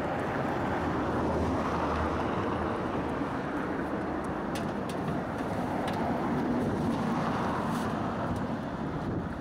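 Street traffic noise: passing vehicles whose tyre and engine noise swells and fades twice, over a steady outdoor background.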